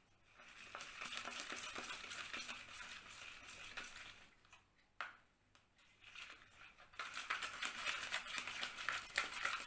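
Homemade slime (glue, water and activator) being stirred in its container as it starts to thicken: a scraping, clicking stir in two spells, with a pause of about two seconds in the middle.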